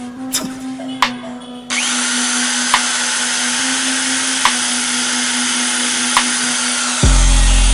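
Electric drill boring a hole into a wall: a steady loud grinding whir that starts about two seconds in. A deep low boom comes in near the end.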